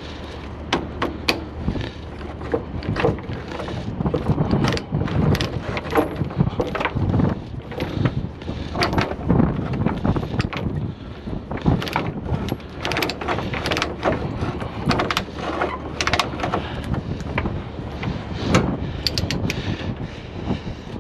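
Ratchet chain binder being cranked tight on a tie-down chain: irregular ratchet clicks and clanks of steel chain against the steel trailer deck, with wind buffeting the microphone.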